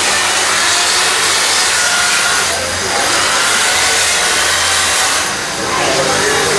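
Husqvarna electric chainsaw cutting into block ice, running loud and steady, with two brief dips in level about two and a half and five and a half seconds in.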